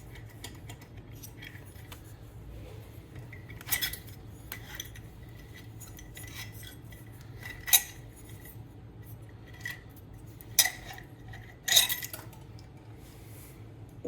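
Metal engine parts and hand tools clinking and knocking as a GY6 engine is dismantled: a scattering of sharp metallic clinks, the loudest about 8 s in and twice near the end, over a low steady hum.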